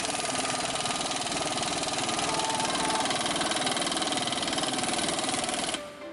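A power tool driving suspension bolts runs steadily with a fast rattle, and cuts off near the end. Background music plays beneath it and is left alone after the tool stops.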